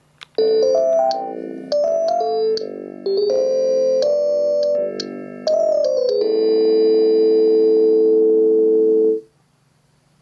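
Panasonic KX-TGD62xE cordless phone playing one of its built-in melody ringtones: a short electronic keyboard-like tune in several phrases, ending on a long held chord that cuts off sharply about nine seconds in. A click or two comes just before the tune starts.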